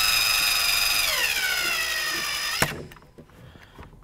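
Cordless drill driving a screw into a plastic console trim panel: a steady motor whine that drops in pitch as the screw snugs down, then stops with a click after about two and a half seconds, followed by a few light handling clicks.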